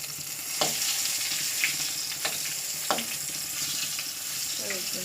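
Flour-coated chicken pieces deep-frying in hot oil, a steady sizzle, with a few sharp clicks spread through it.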